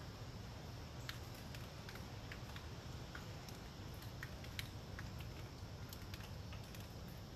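Raindrops pattering on forest leaves in scattered, irregular taps, over a steady low rumble of wind.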